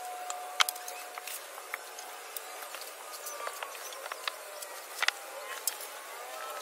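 Black EPDM rubber pond liner being tugged and shifted by hand, giving irregular sharp crackles and taps, over a steady hiss of water running into the liner. A faint held tone fades away about a second in.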